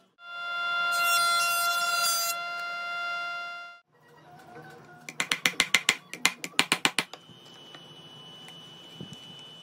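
A steady pitched whine for about three and a half seconds, then two quick runs of sharp clicks, about eight a second: a ratchet driving a brass threaded insert into a walnut board.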